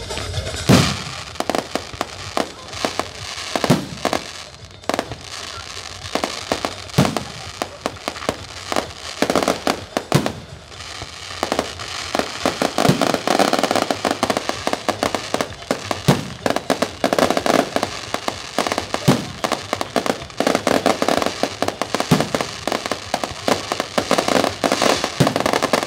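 Fireworks display: aerial shells bursting in sharp bangs every second or two. About halfway through and again near the end, dense crackling from crackle-effect stars.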